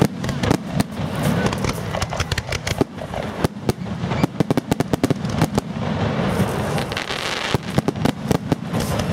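Fireworks going off in a dense barrage: many sharp bangs in quick, irregular succession, one after another with hardly a gap, over a steady low rumble.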